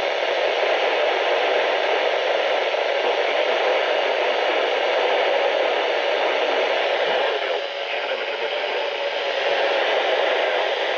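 Radio static: a steady hiss from a weather radio receiver as the broadcast signal fades, drowning out the warning voice.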